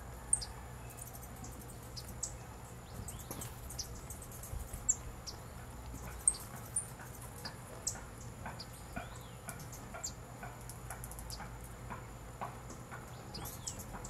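Birds calling: many short, sharp high chirps scattered throughout, with a run of softer, lower clicking notes in the second half, over a faint steady low hum.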